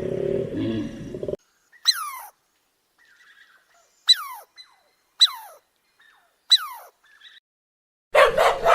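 A bird giving four short, sharp calls a second or two apart, each falling steeply in pitch, with fainter calls between them. Another animal's call cuts off just before, and a dog starts barking near the end.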